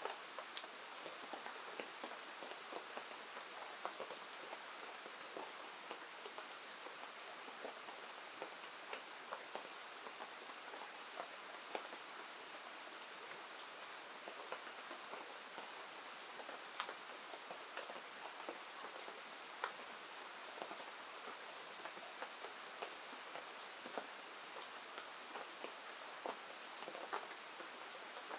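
Steady rain falling, with a constant hiss and many small sharp drop hits scattered irregularly throughout.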